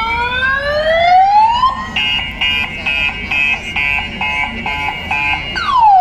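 Siren sound effects blasted from a truck-mounted sound system: two rising whoops, then a quick pulsing beep a little over two times a second, and falling sweeps near the end.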